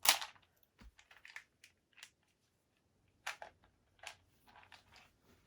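Small plastic box of screwdriver bits and its packaging being handled and opened: a loud crackle at the start, then scattered plastic clicks and rustles.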